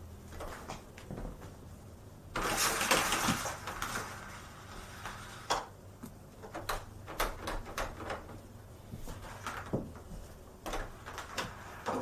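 Hoover Whole House Elite upright vacuum's cord rewind pulling its power cord back in: a sudden loud rushing whir about two and a half seconds in that lasts about a second and trails off. Scattered clicks and knocks follow.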